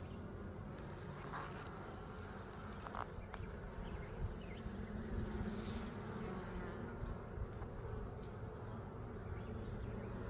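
Honeybees buzzing in a steady hum around an opened hive while its frames are inspected.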